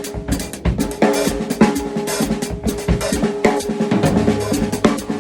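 Drum kit played in a busy syncopated pattern across snare and bass drum, with the hi-hat closed by the foot pedal on steady quarter notes underneath.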